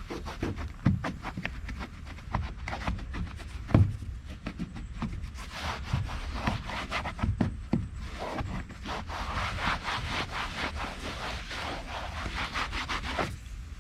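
Towel rubbing UV protectant into a kayak's plastic parts in quick, irregular wiping strokes, with a sharp knock a little under four seconds in.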